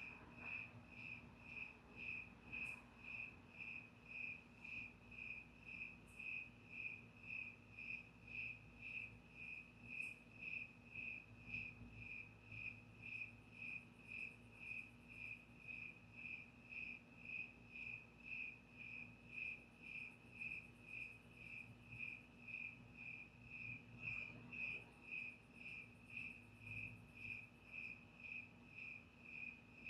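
A cricket chirping in an even, steady rhythm, a single high pitch repeated about two to three times a second, heard faintly.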